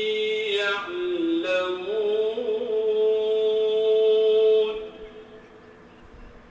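A single male voice chanting in Arabic in the Islamic devotional style, holding long drawn-out notes with slow melismatic slides, which stops about three-quarters of the way through, leaving faint outdoor quiet.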